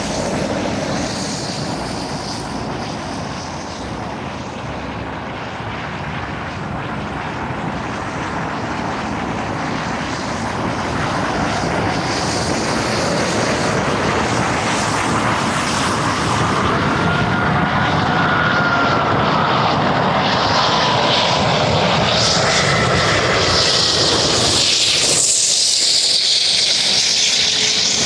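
British Airways Airbus A380's four Rolls-Royce Trent 900 jet engines on final approach. A steady rushing drone grows louder as the airliner closes in, with a faint engine whine that bends in pitch in the second half.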